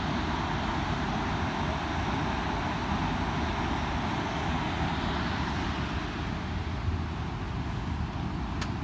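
A waterfall rushing steadily, an even hiss of falling water.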